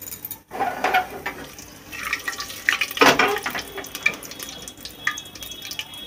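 Whole spices sizzling and crackling in hot mustard oil in an aluminium pressure cooker, an irregular spluttering with louder bursts about a second in and around three seconds.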